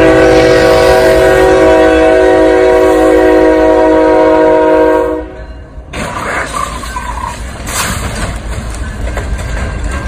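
CSX diesel freight locomotive's air horn sounding one long multi-note chord for about five seconds, then cutting off. The train's rumble and wheel clatter follow as it rolls through the grade crossing, with a sharp crack a little after halfway.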